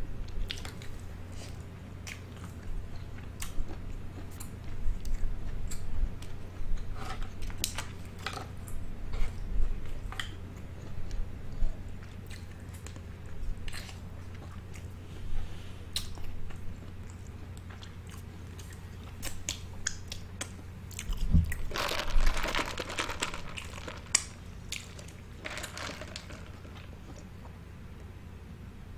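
Close-miked chewing and biting of seafood-boil food, with scattered wet smacks and crunches, densest a little past two-thirds of the way through.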